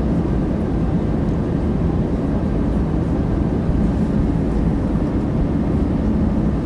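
Passenger airliner cabin in flight: a steady, even rumble of engine and airflow noise, heaviest in the low range.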